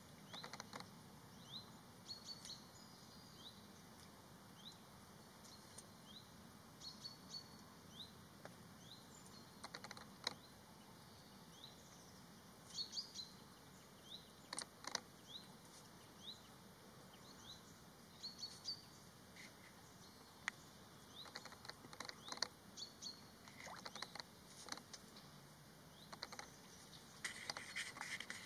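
Faint birdsong: a small bird repeating short rising chirps about once or twice a second, with a few sharper, louder notes scattered through, over a low steady background hiss.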